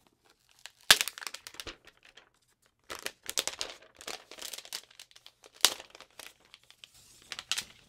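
Clear plastic protective wrap being peeled off a laptop, crinkling and crackling in irregular spurts, with sharp snaps about a second in and again near six seconds.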